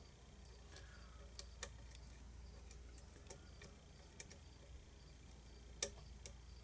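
Faint, scattered clicks of a lock pick and tension wrench working the pins inside a challenge lock, with one sharper click near the end.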